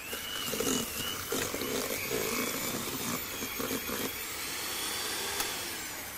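Electric hand mixer running, its beaters creaming butter and sugar in a stainless steel bowl. The motor whine rises as it starts, holds steady with a few clicks of the beaters against the bowl, and winds down near the end.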